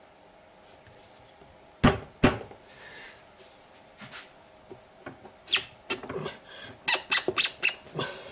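Screwdriver knocking and scraping inside a drain pump's housing as it is forced through the cable entry to push out the rubber cable grommet. Two sharp knocks about two seconds in, then scattered scrapes and a quick run of sharp clicks in the second half.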